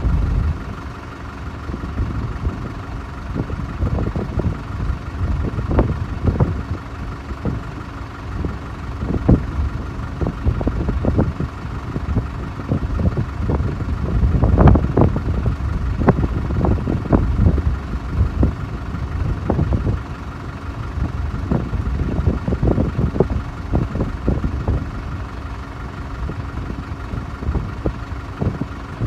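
Wind buffeting the microphone in gusts, over the steady distant hum and whine of the Airbus A380's four jet engines on approach.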